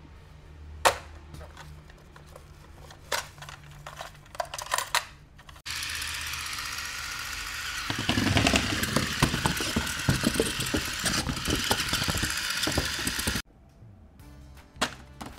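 A battery-powered tumbling stunt toy car running: a steady motor whir, with its wheels clattering and thumping on the board from about a third of the way in, cutting off suddenly. Before and after it come scattered plastic clicks and taps of toy cars being handled.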